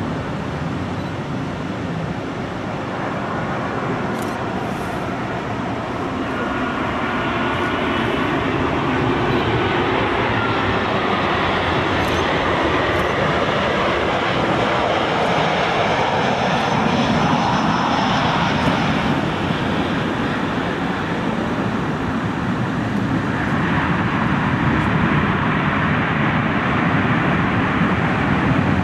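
Boeing 737 BBJ's CFM56-7 turbofan engines rumbling and whining as the jet comes in to land and touches down on a wet runway. The noise swells about a quarter of the way in and gets louder again near the end.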